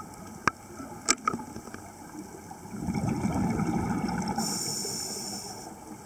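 Scuba regulator exhaust bubbles underwater: a diver exhales, and the bubbling rumbles from about three seconds in, with a high hiss near the end. Two sharp clicks come in the first second and a half.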